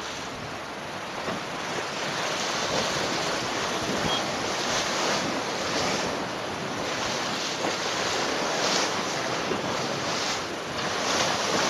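Sailboat surfing downwind in strong wind: water rushing and splashing along the hull as the bow throws off spray, in repeated surges, with wind buffeting the microphone.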